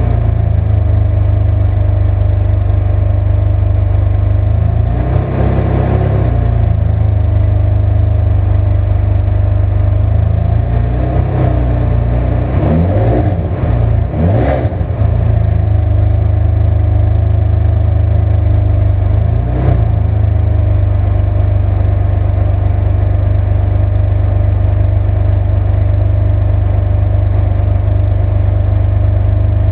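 Ferrari 599 GTB Fiorano's 6.0-litre V12 idling and being revved briefly several times: once about five seconds in, a quick run of blips around thirteen to fifteen seconds in, and a short one near twenty seconds. It then settles back to a steady idle.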